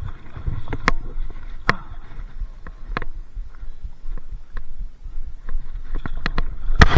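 Scattered clicks and knocks over a low rumble, with a louder burst of clattering near the end: handling and rubbing noise on a body-worn camera.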